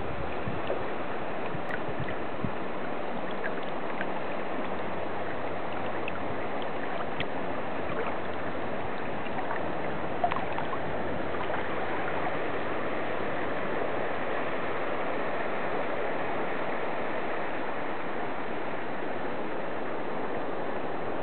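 River water flowing steadily over a stony bed, with a small splash about halfway through.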